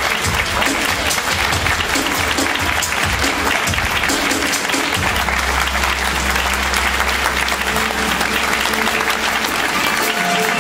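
Audience applauding steadily over background music. A low bass note comes in about halfway.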